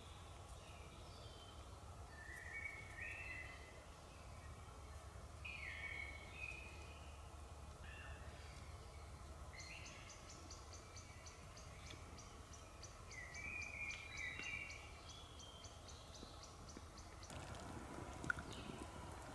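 Songbirds singing short phrases every couple of seconds over quiet forest ambience, with a fast, even run of high chirps in the middle. Near the end, a crackling campfire being tended, with one sharp click.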